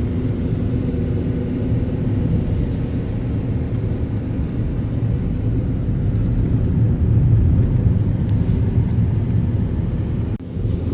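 A car being driven: steady low engine and road rumble, dipping briefly about ten seconds in.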